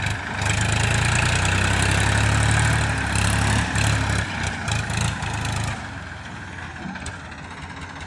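Diesel tractor engine working hard in low gear through loose sand, its low note swelling much louder about half a second in. It eases back to a quieter, steady run a little before six seconds.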